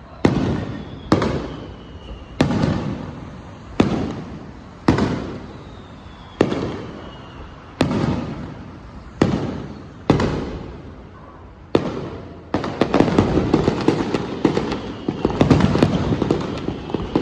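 Fireworks going off: about ten sharp bangs, one every second or so, each trailing off in a long echo. Then, past the middle, a dense rapid crackle of many small pops.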